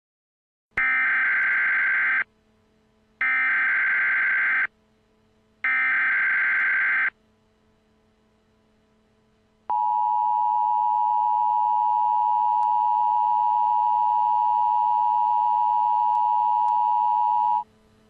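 Emergency Alert System SAME header: three identical bursts of screeching digital data, about a second and a half each, followed by the EAS two-tone attention signal, a steady dual tone held for about eight seconds. Together they open a flash flood warning.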